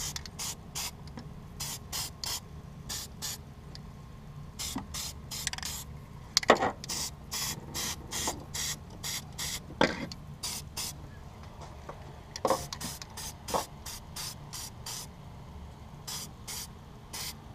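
Aerosol can of black high-temperature silicone coating sprayed onto exhaust header wrap in many short, hissing bursts, with a few sharp taps in between.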